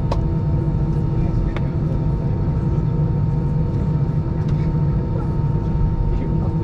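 Airbus A320 cabin noise while taxiing: the jet engines at idle give a steady low rumble, with a thin steady whine over it and a few faint clicks.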